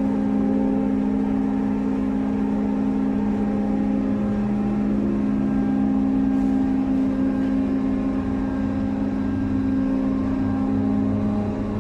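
Ship's crane machinery running with a steady, loud hum made of a few fixed tones while it hoists a suspended steel plate out of the hold. A deeper low hum joins about eight seconds in.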